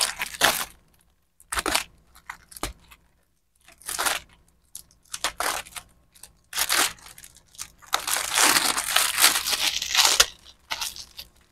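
A plastic sack being cut and torn open: a series of short crinkling rips, then a longer stretch of tearing and rustling about eight seconds in.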